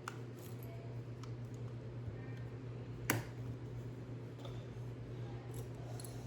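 Small plastic clicks of Lego pieces being handled, with one sharper click about three seconds in, over a steady low hum.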